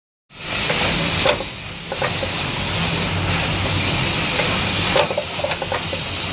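Mirae MAI automated component insertion machine running: a steady hiss over a low hum, with clusters of sharp clicks and clacks about a second in and again around five seconds as the placement head moves and works.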